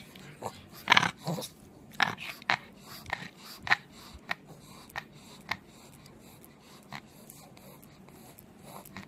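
A pug making a string of short, breathy noises close to the microphone. The loudest comes about a second in, then they come at irregular intervals, growing fewer and fainter.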